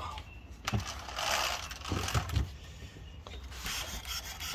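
A 1/5-scale RC car being handled and set down: a knock less than a second in, then rubbing and a couple of dull thuds. A faint, rapid mechanical ticking follows near the end.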